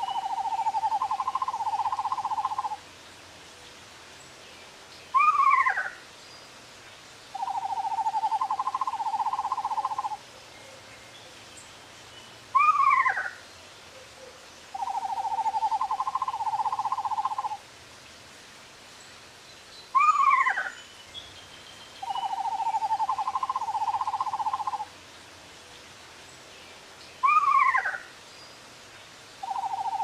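Male eastern screech owl giving its mating call: a short falling call and a long, even trill of about three seconds alternate, the pair repeating about every seven seconds.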